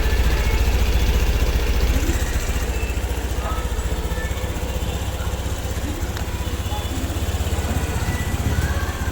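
Small Honda scooter engine idling steadily, its low even putter easing slightly about two seconds in.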